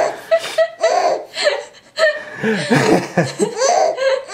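Giggling laughter in quick, repeated rising-and-falling bursts, with a short pause about two seconds in.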